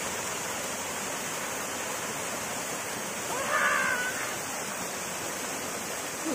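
Steady rush of clear mountain water running, as from a spring-fed stream or small cascade. A brief pitched call rises over it about halfway through.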